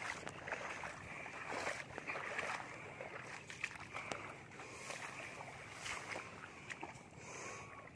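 Ripe rice stalks swishing and rustling against the legs with each quick stride through a waterlogged paddy, mixed with sloshing steps in the wet mud, about one swish a second.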